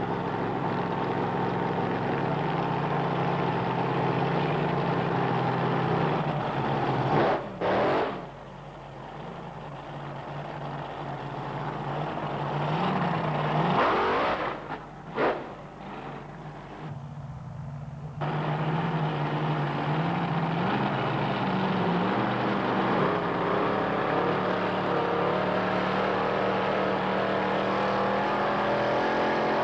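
Pro Comp dragster engines running at a lumpy idle, blipped to sharp rising revs twice, about 7 and 14 seconds in, during a tyre-smoking burnout, then idling steadily again at the start line.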